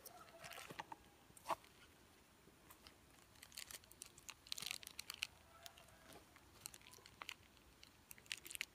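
Faint crinkling and rustling of a clear plastic bag and cardboard packaging being handled, with scattered small crackles that come thickest about halfway through and again near the end.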